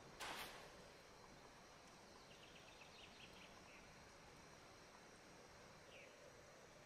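Near silence: faint outdoor stillness. Just after the start comes a brief soft noisy hit, and in the middle a faint run of quick, high chirps.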